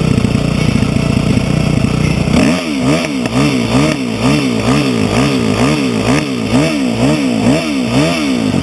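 Dirt bike engine idling, then from about two and a half seconds in its pitch rises and falls in quick, regular swells, about twice a second, until near the end.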